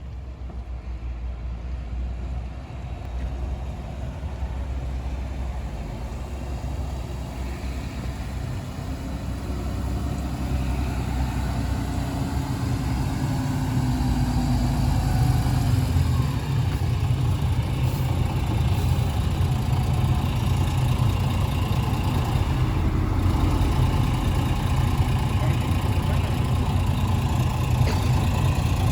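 Mercedes-Benz O307 city bus's diesel engine running as the bus drives, heard from inside the cabin. It grows louder over the first half and then holds steady.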